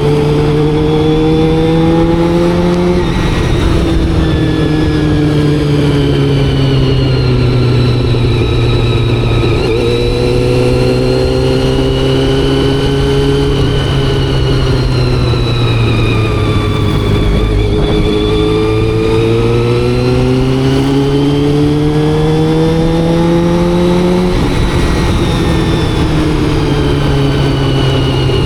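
Honda CBR400RR's carbureted inline-four engine, freshly serviced and carb-tuned, pulling on the road: the pitch climbs, drops sharply at a gear change about three seconds in, sinks slowly as the bike eases off, then climbs again to another sharp drop near the end.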